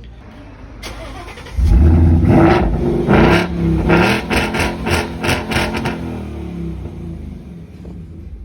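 Ford Mustang 5.0 V8 engine being revved. It jumps up loudly about a second and a half in, is blipped several times in quick succession, then settles back to a steady idle.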